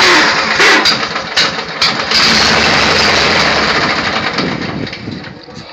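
Riding lawn mower's newly swapped-in engine running loudly just after starting, then dying down near the end.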